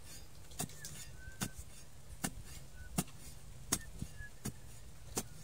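A digging bar jabbed repeatedly into soil, about seven sharp strikes at an even pace of a little over one a second.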